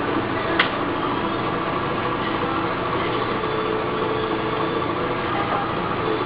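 Inkjet baseball-bat printer running: a steady mechanical hum with one sharp click just over half a second in.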